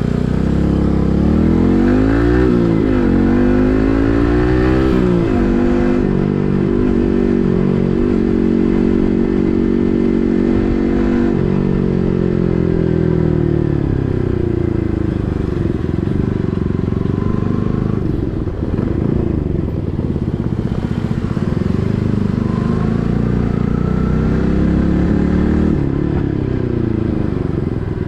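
Yamaha MT15's 155 cc single-cylinder engine through an SC Project full-system exhaust, under way. It revs up and down quickly through gear changes a couple of seconds in, holds a steady pitch for several seconds, then drops off with a falling pitch and keeps rising and easing through the rest.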